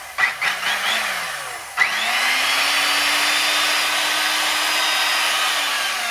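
Corded circular saw motor switched on: it starts with a click about two seconds in, spins up to a steady whine, runs for about four seconds and begins to wind down near the end. It runs smoothly, with no squeaks and nothing sounding off inside the motor.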